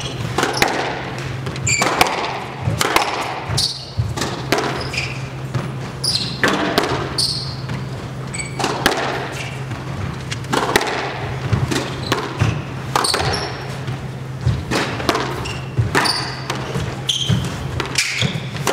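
Squash rally: the rubber ball is struck by the rackets and smacks off the front and side walls in a string of sharp hits roughly every second, with sneakers squeaking on the wooden court floor between shots.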